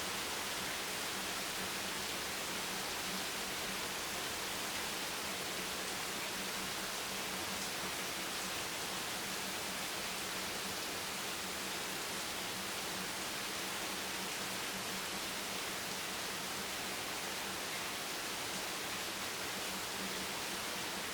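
Heavy rain falling on a beach bench: a dense, steady hiss with a faint low tone underneath.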